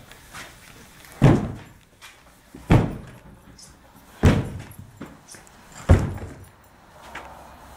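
Four heavy blows, about one every second and a half, as a long-handled tool is swung down onto an old armchair to smash it apart; each strike is a loud thud with a short rattling tail.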